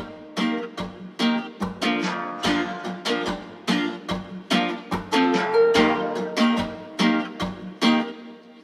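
Background music: strummed acoustic plucked strings in a steady rhythm of about two strums a second, fading out near the end.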